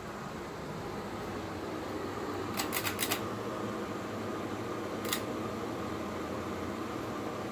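Ceiling fan running steadily with a low hum and airy whoosh, while its pull-chain speed switch is clicked: a quick run of clicks about two and a half seconds in and a single click near five seconds. The fan keeps the same speed despite the pulls, "still not changing speeds".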